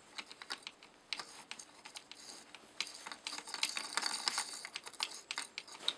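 Irregular light clicks and clinks of hand tools being handled, sparse at first and busier in the second half.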